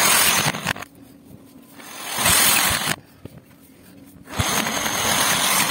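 Power drill with a step drill bit cutting holes through PVC pipe: three bursts of grinding cutting noise, each about a second long, with short pauses between.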